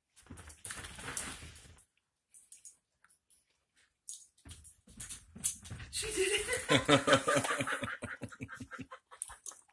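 Australian shepherd mix dog playing with a teddy bear, scuffling at first, then making a quick run of huffing, grunt-like noises, several a second, for a couple of seconds near the end.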